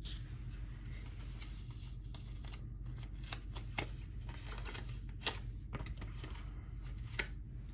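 Paper and card being handled: scattered soft rustles, small tearing and clicking sounds, over a steady low hum.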